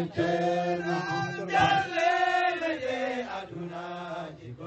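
A man's voice chanting a verse into a handheld microphone, in slow, drawn-out held notes that ease off near the end.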